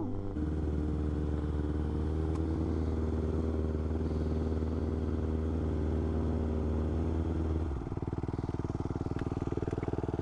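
Motorcycle engine held at a steady speed, then dropping back to a pulsing idle a little under eight seconds in.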